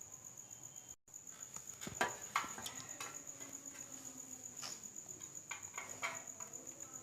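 A cricket chirping in a steady high pulsing trill, with a few scattered clicks and knocks from about two seconds in.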